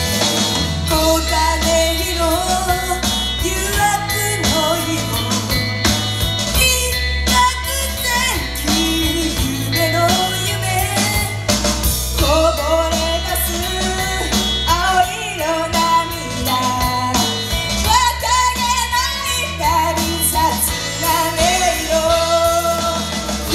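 Idol-group song performed live: female voices singing a melody over a loud rock backing with guitar and heavy bass.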